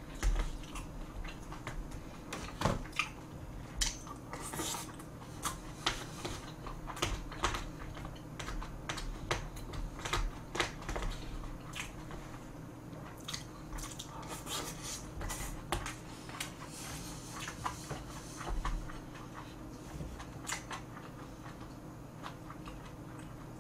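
A person chewing and eating close to the microphone, with irregular wet mouth clicks and smacks; the food is bacon kimchi fried rice and dumplings.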